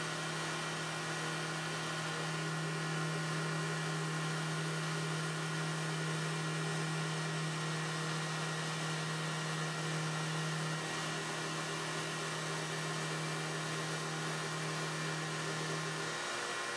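CNC router spindle running a knurled ceramic-tile bit that grinds through carbon fiber sheet: a steady whine and hiss. A steady low hum under it stops shortly before the end.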